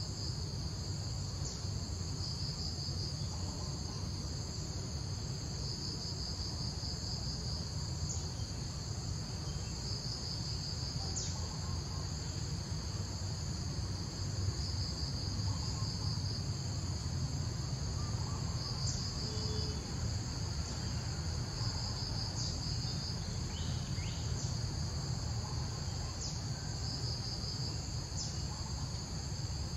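Insects chirring steadily in a high-pitched chorus that swells in waves every few seconds, over a steady low rumble.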